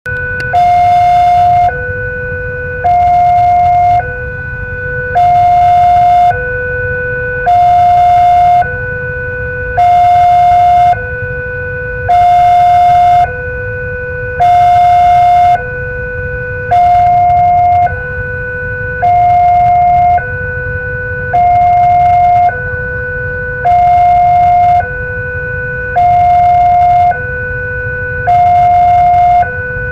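Railway level-crossing warning alarm sounding its two-tone signal, a higher tone and a lower tone alternating, each held about a second, the higher one louder; it signals an approaching train with the barriers down. A low rumble of traffic runs underneath.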